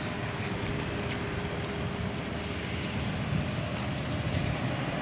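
Steady low rumbling outdoor background noise with a few faint clicks.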